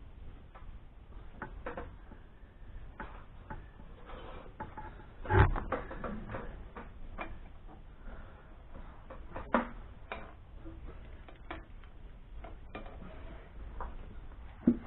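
Scattered clicks and knocks of hands and metal parts being handled at an engine's inlet manifold and carburettor. The loudest knock comes about five seconds in.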